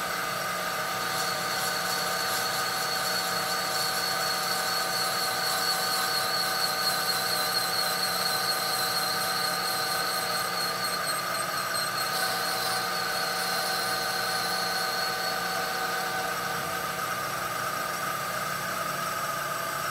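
Winona seat and guide machine's spindle running while a core drill reamer cuts dry through an old valve guide in a cylinder head: a steady machining whine with a high, slightly wavering squeal over it.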